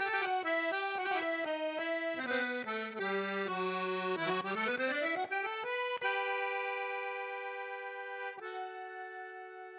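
Instrumental music: a quick melody of short notes, running down and back up, then settling on a long held chord that fades away near the end.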